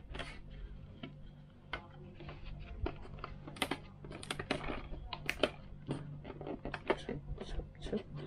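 Irregular light clicks and knocks of hard plastic as the canopy of an FT009 RC speedboat is unclipped, lifted off and set down, and the hull's hatch rim is handled. A faint steady low hum runs underneath.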